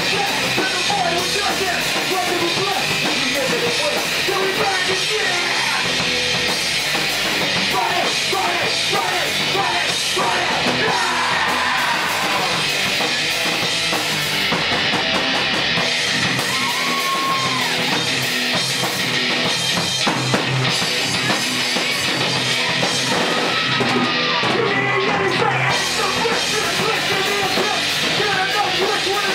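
Live rock band playing loud in a small room, with drums and cymbals, electric guitar, bass guitar and a vocalist on a microphone.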